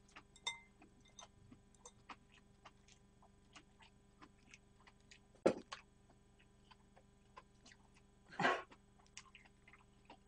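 Close-miked eating: soft scattered chewing and mouth clicks, with a sharper click about five and a half seconds in and a louder half-second rush of noise about eight and a half seconds in.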